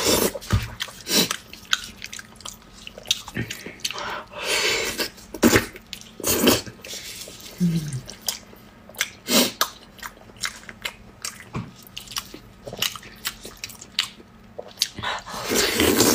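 Close-up wet eating sounds of braised pork in sticky sauce: chewing, lip-smacking and sucking sauce off gloved fingers, with many sharp sticky clicks and a few longer slurps, one about four seconds in and one near the end.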